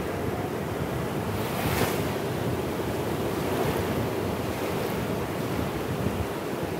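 Small waves washing up onto a sandy beach, with surf breaking farther out, and wind rumbling on the microphone. One wave's wash swells louder about a second and a half in.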